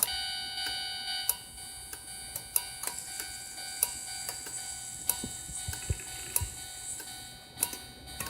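O-gauge model railroad crossing signal sounding: a steady electronic tone that switches on abruptly, with sharp ticks over it, some of them recurring about every 1.3 seconds.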